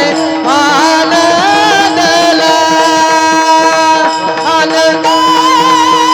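Marathi devotional bhajan singing in a high voice, with gliding ornaments and long held notes, over a steady drone.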